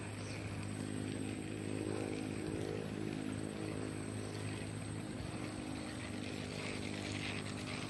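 A steady, low engine hum from a distant motor, droning evenly without revving.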